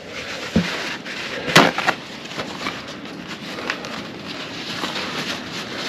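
Handling noises: a few short, sharp knocks, the loudest about one and a half seconds in, over a steady background noise.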